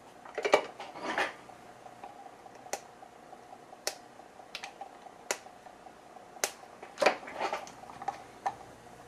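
Handling noises of small electronic parts on a circuit board clamped in a bench vise: about six sharp clicks and a few short scraping sounds, over a faint steady hum.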